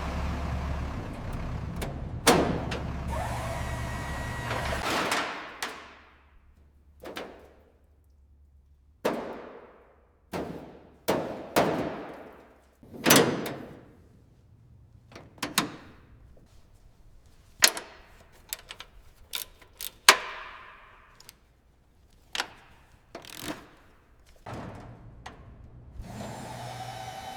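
A series of separate knocks and clunks with short scraping swishes between them. A steady low hum runs under them for the first five seconds.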